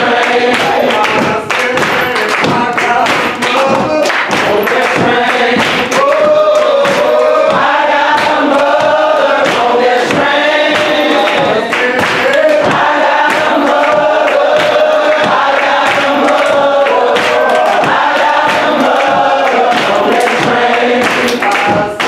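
A church congregation and choir singing a gospel song together in many voices, with frequent sharp percussive hits throughout.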